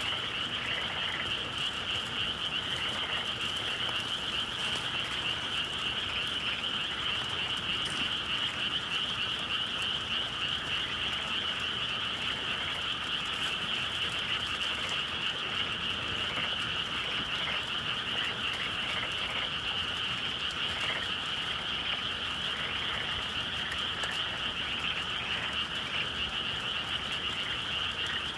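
A dense chorus of many frogs calling at once, steady and unbroken.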